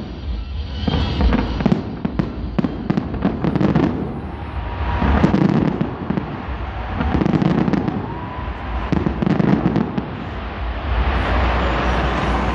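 Fireworks going off: a rapid run of sharp crackles, then several heavy booms a second or two apart, ending in a continuous wash of bangs and crackling.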